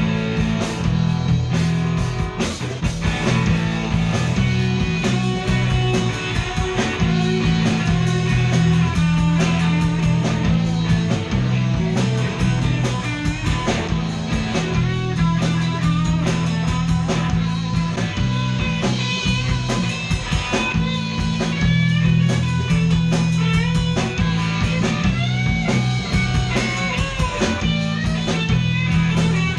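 Live rock band playing an instrumental passage: electric guitar over bass and drums, with a lead guitar line of bending notes in the second half.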